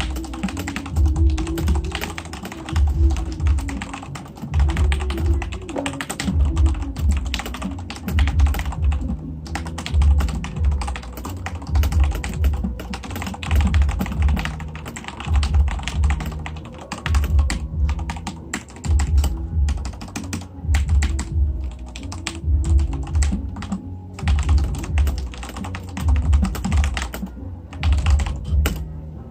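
Fast, continuous typing on a Corsair K63 mechanical keyboard with linear Cherry MX Red switches, a dense run of key clicks and key-bottoming clacks. Background music with a steady, heavy bass beat about once a second runs underneath.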